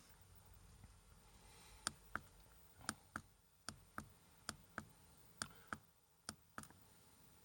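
Diesel air heater's fuel dosing pump clicking faintly and regularly as the heater runs. The clicks come in pairs, about one pair every three-quarters of a second, starting about two seconds in.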